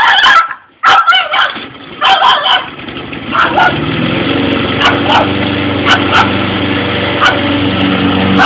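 A small dog barking in short, sharp yaps while a lawn mower engine starts about three seconds in and then runs steadily.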